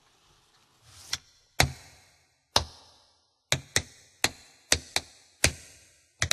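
A series of about ten sharp, knock-like percussive hits, irregularly spaced and each ringing out briefly, with a swelling hiss leading into the first one about a second in.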